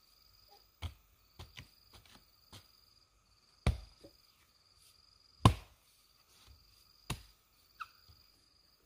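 About ten irregular chopping blows from a hand tool, the two loudest a little before and after the middle, with insects trilling steadily behind.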